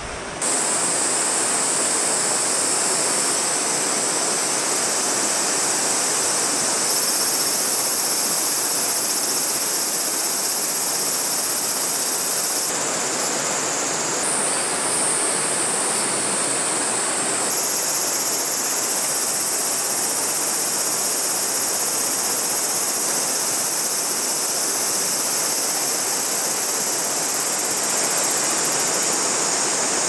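Steak sizzling on an extra-thick black-iron griddle plate: a loud, steady hiss that shifts abruptly a few times.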